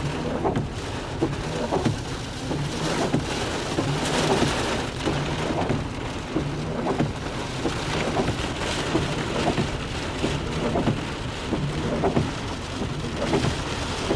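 Heavy thunderstorm rain falling steadily, with wind coming in irregular gusts.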